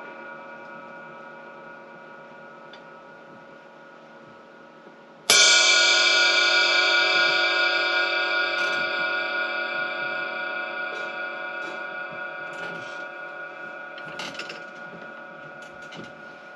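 Paiste Sound Formula Reflector 20-inch power ride cymbal struck once about five seconds in and left to ring out, a bright shimmer of many steady tones fading slowly. Before the hit, the tail of an earlier strike dies away.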